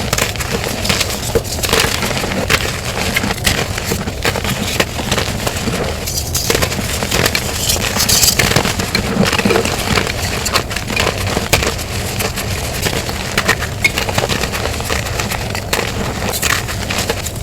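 Gym chalk being crushed and crumbled by hand: a continuous dense crunching made of many small cracks and crumbles.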